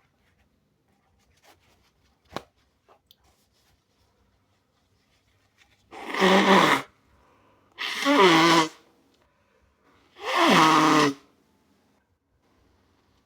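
Three wet sneezes from a person with a cold, coming one after another a second or two apart, each about a second long; the last falls in pitch. A single sharp click comes about two seconds in.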